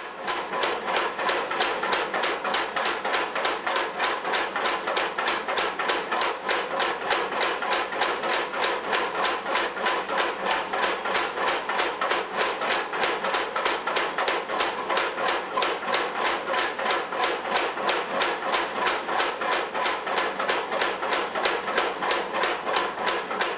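Homemade Anvilfire X-1 style leaf-spring power hammer, belt-driven by an electric motor, running continuously and pounding a red-hot steel bar between its dies in rapid, even blows, about three a second.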